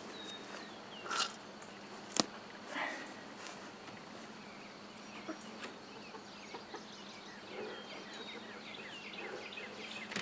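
Quiet outdoor background with faint, brief high chirps of birds scattered through it. There are a few soft short rustles, one sharp click about two seconds in, and a steady low hum underneath.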